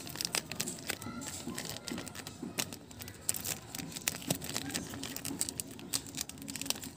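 Clear plastic wrapping crinkling and crackling as hands peel it off a statue, a dense run of quick sharp crackles.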